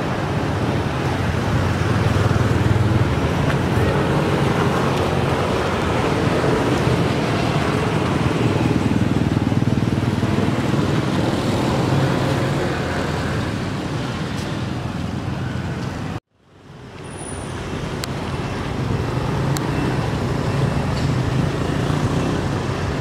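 Steady outdoor background noise of road traffic, with a low hum running under it. About sixteen seconds in, the sound cuts out completely for a split second, then fades back in.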